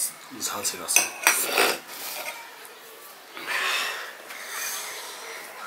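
A steel spoon clinking against stainless steel plates and a bowl, with several sharp clinks in the first two seconds. This is followed by softer rubbing as rice is mixed by hand on a steel plate.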